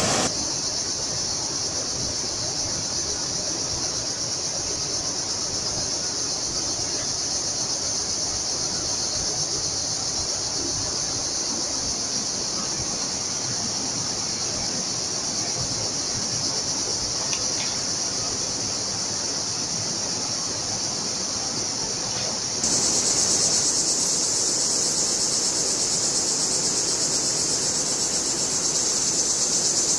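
Steady, high insect chorus over the murmur of a canyon stream. The sound changes abruptly just after the start and again about 23 seconds in, where the insect chorus gets louder.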